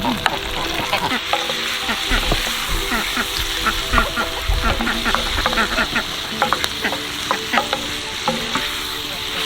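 Food sizzling in a hot pan, a steady frying hiss, with many small clicks and scrapes of a utensil stirring it.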